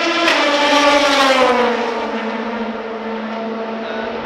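Race car passing at speed. Its engine note is loudest about a second in, drops in pitch as the car goes by, and settles into a steadier, lower note as it moves away.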